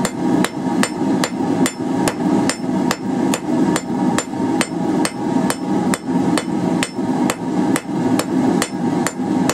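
Steady, rhythmic hammer blows on a hot quarter-inch round bar lying on the anvil face, about two and a half strikes a second, some with a quick light rebound tap, as the tapered end is rounded up. A steady hum runs underneath.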